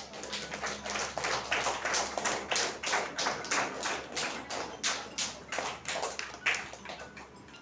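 A small group clapping by hand, with separate claps heard in an uneven patter that dies away near the end.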